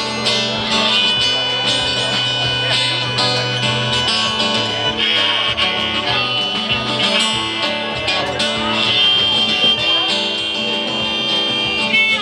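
Live acoustic duo playing an instrumental passage: an acoustic guitar with a drum kit keeping the beat.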